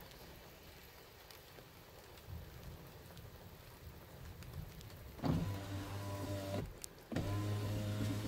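Car power window motor running twice, each run a steady whine of a little over a second with a short pause between.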